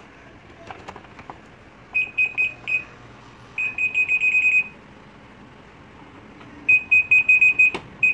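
Piezo buzzer on a Whirlpool automatic washing machine's control board beeping at one high pitch in quick runs of short beeps, three runs in all, as the freshly installed board is switched on and tested. A single sharp click comes near the end.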